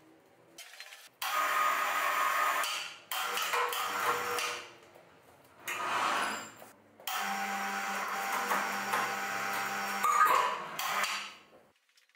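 A motorised power tool run in four bursts, starting sharply each time and tapering off as it stops; the last burst is the longest, about four to five seconds.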